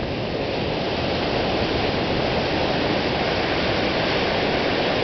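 Ocean surf breaking and washing up the shore: a steady, even rush of noise.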